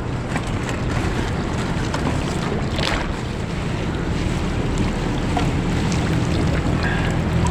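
Wind buffeting the microphone over water lapping at a small boat, as a wet nylon gill net is pulled hand over hand over the side. A low steady hum runs beneath, and there is a short splash-like rush about three seconds in.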